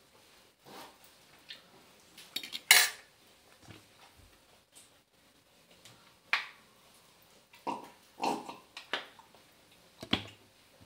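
Small objects being handled: a scatter of sharp clicks and rustles, the loudest about three seconds in.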